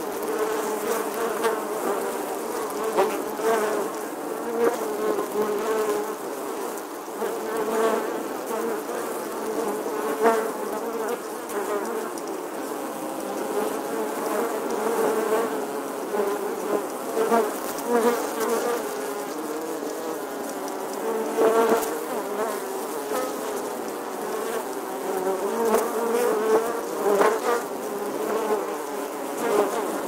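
Bee buzzing: a continuous, wavering drone that swells louder briefly every few seconds.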